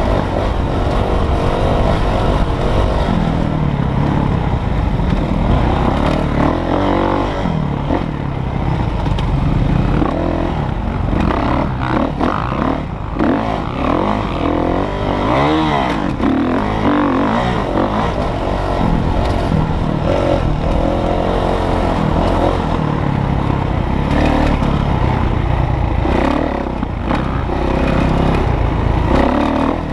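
Dirt bike engine at race pace, heard close from the bike itself, its pitch repeatedly rising and falling as the throttle opens and closes over the course.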